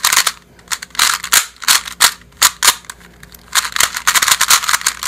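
Fangshi XingYu 2x2 speedcube being turned fast during a solve: its plastic layers click and clack in rapid bursts with short pauses between, the longest run about three and a half seconds in.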